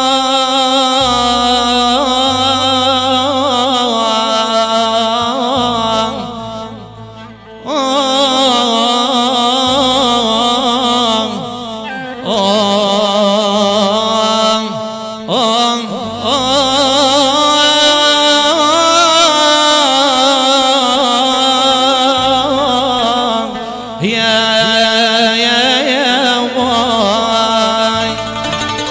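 Middle Eastern music: a wavering, heavily ornamented melodic line over a low accompaniment, dropping away briefly about seven seconds in.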